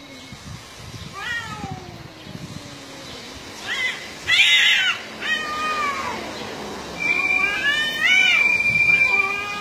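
Two cats yowling at each other in a territorial standoff: long, wavering caterwauls that glide up and down in pitch. The cries are loudest and harshest about four seconds in and again near the end.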